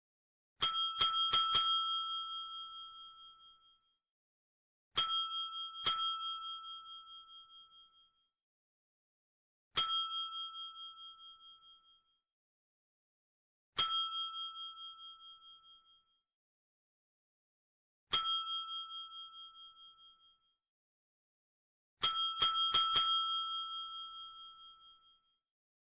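Desk bell (counter service bell) struck repeatedly: a quick run of four dings, then a pair, then three single dings several seconds apart, then another quick run of four. Each ding is a bright metallic ring that fades over about two seconds, with silence between the groups.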